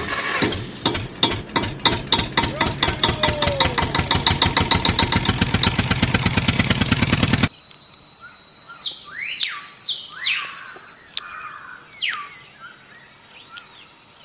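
An engine chugging in regular beats that steadily speed up. About seven seconds in it cuts off abruptly, leaving birds chirping over a steady high hiss.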